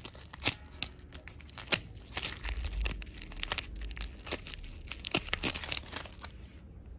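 Fingers rubbing dried seeds loose from a dry sunflower head: a dry, crackling rustle with many irregular sharp clicks as the seeds and husks break free.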